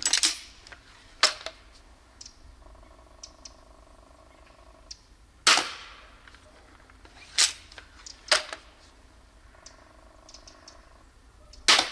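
Adder repeating pistol crossbow shooting bolts into a block of ballistic gelatin: a series of sharp snaps a second or several apart, the string's release and the bolt's hit on the gel. Between shots there are two stretches of a faint steady hum, about two seconds each.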